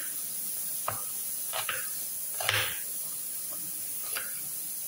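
Kitchen knife slicing through a red onion, about five slow, irregular cuts, each ending in a light tap on the board; the loudest comes about halfway through.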